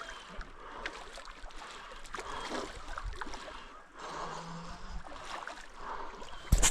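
Creek water running and splashing, with a sudden loud knock near the end.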